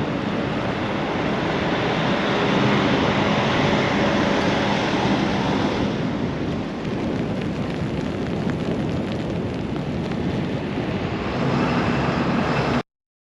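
Strong blizzard wind blowing as a steady rushing roar, with a faint low hum underneath at the start and again near the end; it cuts off abruptly just before the end.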